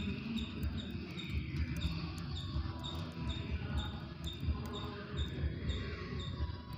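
Budgies pecking at millet seed, a quick irregular run of low knocks and taps. A faint short high chirp repeats steadily about twice a second.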